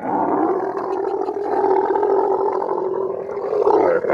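Camel calling loudly: one long call that starts abruptly, its pitch dipping briefly near the end.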